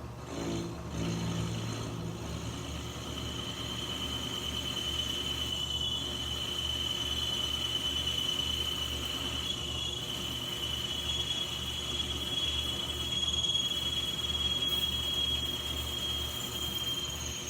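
Metal lathe cutting an aluminum part, the tool squealing on the metal: a steady high-pitched squeal sets in a few seconds in and holds, wavering slightly, until near the end, over the low hum of the running lathe.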